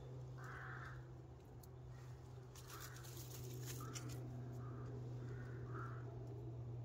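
A crow cawing, about six harsh calls a second or so apart, the first the loudest, over a steady low hum.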